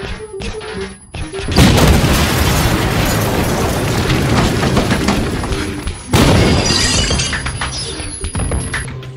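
Original score for a dance performance: a quiet pulsing passage of short repeated notes, broken about a second and a half in by a sudden loud crash of noise that slowly fades, and a second sudden crash about six seconds in that fades in turn.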